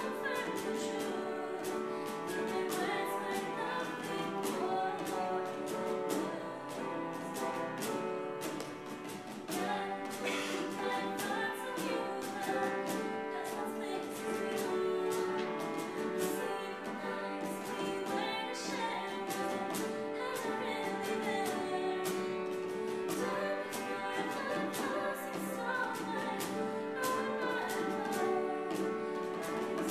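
Small acoustic ensemble playing a slow song: acoustic guitar, cello and piano, with a steady beat on a cajon and bongos.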